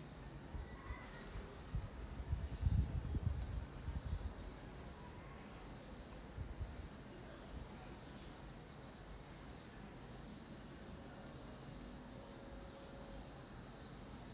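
Insects chirping steadily: a high trill with short chirps repeated every second or so. Low thumps and rumbling come about two to four seconds in.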